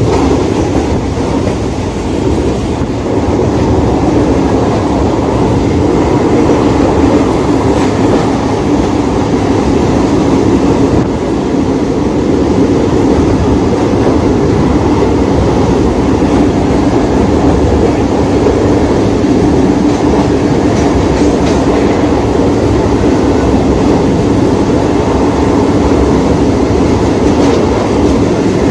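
Mumbai suburban local train, an electric multiple unit, running at speed, heard from inside the coach: steady, loud running noise of wheels on track with a steady low hum.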